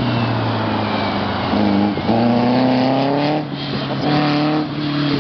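Meyers Manx dune buggy's engine accelerating through an autocross course: its pitch rises under throttle, then drops off briefly about three and a half seconds in and again near the end as the throttle is lifted.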